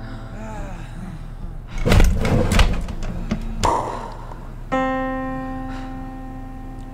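Cartoon soundtrack: background music with a few sharp thuds about two seconds in, then a held musical note that starts suddenly past the halfway mark and slowly fades.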